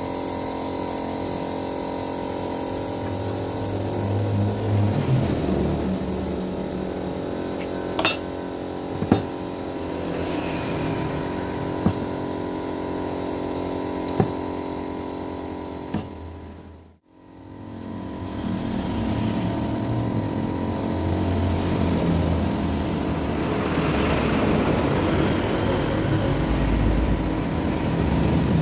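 Electric power-tool motor running steadily at constant speed, with a few sharp knocks now and then; about two-thirds of the way through the sound drops out briefly and then returns.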